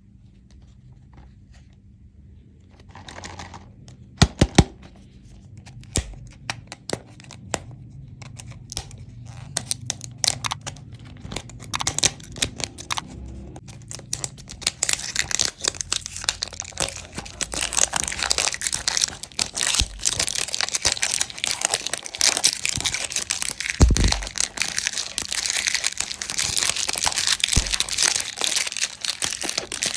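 Candy packaging being unwrapped by hand: quiet at first, a couple of sharp taps about four seconds in and scattered clicks, then dense crinkling and tearing of the wrapper that grows louder from about halfway.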